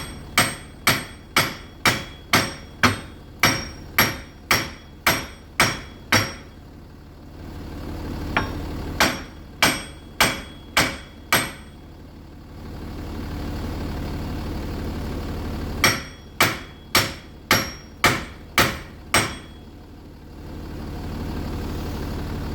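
Three runs of heavy hammer blows on a seized front wheel hub, metal on metal, about two a second. The car's diesel engine idles steadily underneath and is heard on its own in the pauses between the runs.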